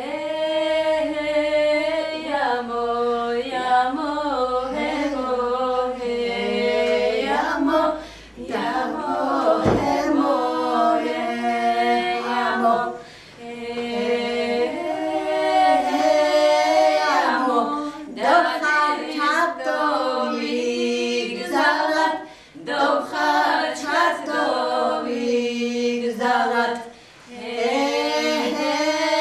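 Several women's voices singing an unaccompanied Laz folk song in parts, held notes moving together in phrases with short breaks between them.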